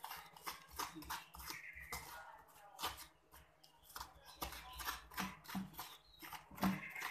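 Seeds and soft pith being scooped and scraped out of a halved winter melon: an irregular run of short wet scrapes and clicks.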